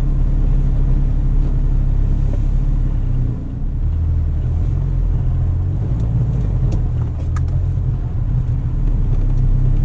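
Honda S2000's inline-four engine running as the car drives off, heard from inside the cabin, with the level dipping briefly about three seconds in.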